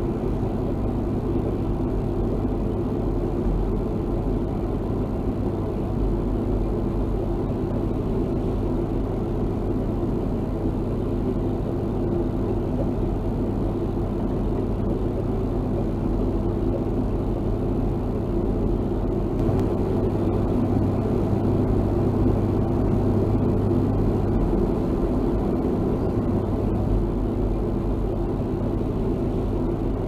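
Air-conditioning unit running steadily: a constant low hum with several steady tones under a smooth rushing noise.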